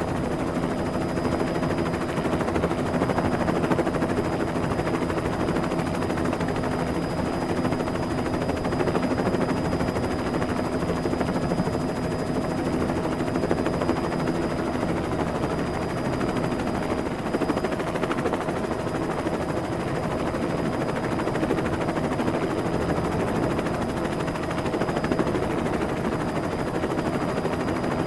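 Dubbed-in helicopter sound effect: a helicopter's rotor and engine running steadily at an even level, with a few steady tones over dense noise.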